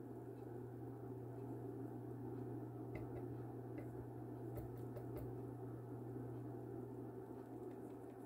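Steady low hum of room tone, with a few faint light clicks of a plastic measuring cup being handled about three to five seconds in.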